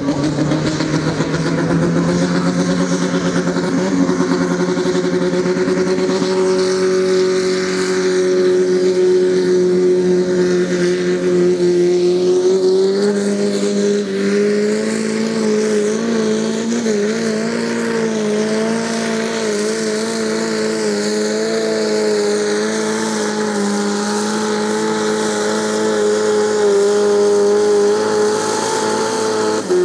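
A competition pulling tractor's engine running hard at high revs under load, holding a steady pitch that steps up once about twelve seconds in.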